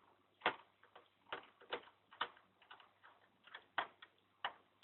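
Faint, irregular clicks, roughly one every half second, from a screwdriver turning a screw into a PlayStation 3 during reassembly.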